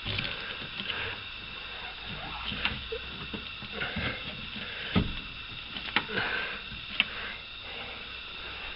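Scattered light knocks and clicks of hands and parts being handled inside a car door, with the window glass and regulator being fitted.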